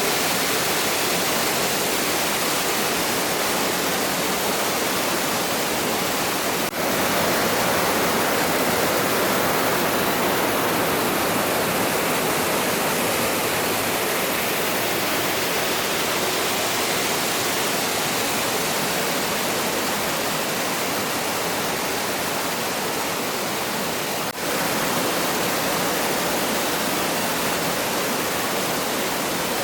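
Steady rush of a mountain gorge stream's water, a dense even noise with two very brief dips in level.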